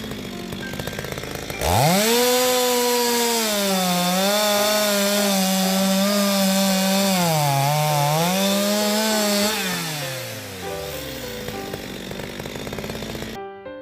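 Two-stroke chainsaw engine revving sharply up to full throttle and holding a steady high buzz with a brief dip in pitch. About ten seconds in it winds down with falling pitch. Piano music comes in near the end.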